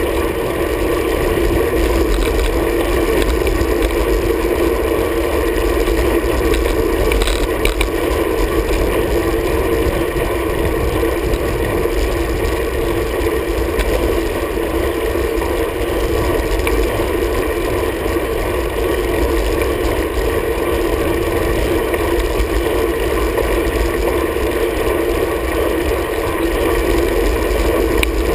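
Road bike ridden on asphalt, heard through a camera mounted on its handlebars: a steady rumble of tyre and road vibration with some wind noise.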